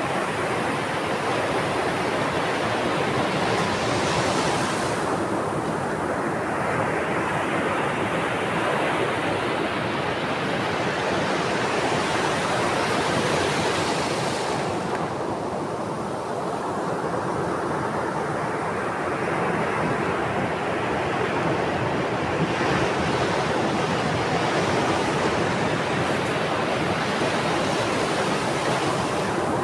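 Ocean waves breaking and washing on a shore, a steady rush that swells and ebbs about every ten seconds, three surges in all.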